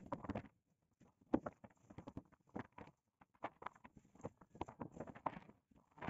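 Horses' hooves stepping and shuffling on the ground, an irregular run of short knocks.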